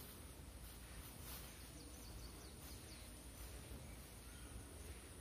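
Faint outdoor background with a steady high-pitched whine and a few faint bird chirps.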